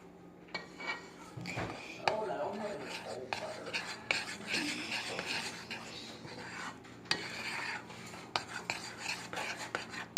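A spoon stirring thick fudge mixture with pecans in a bowl, scraping irregularly with sharp clinks against the sides.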